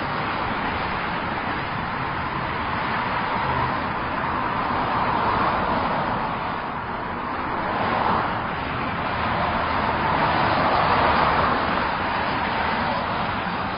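Continuous highway traffic: the steady noise of cars' tyres and engines, swelling a few times as nearer vehicles pass.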